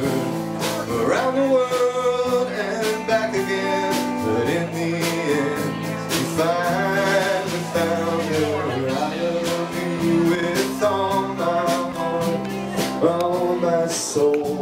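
Live band playing a slow country-style love song: a man singing over strummed acoustic guitar and electric bass.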